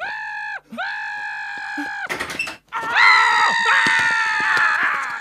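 A cartoon dog screaming: two held, high-pitched screams, a short harsh burst of noise about two seconds in, then a louder, longer scream with wavering, falling pitches.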